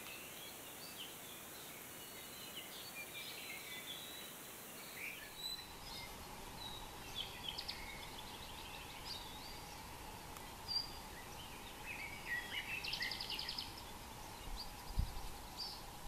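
Birds chirping and calling in short notes over a quiet outdoor background, with a quick rattling trill about 13 seconds in.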